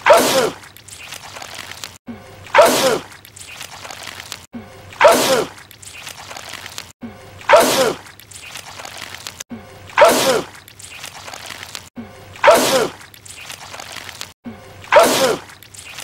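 A man sneezing loudly, the same sneeze repeated seven times about every two and a half seconds as a looped clip; each sneeze is a sudden burst whose pitch falls away.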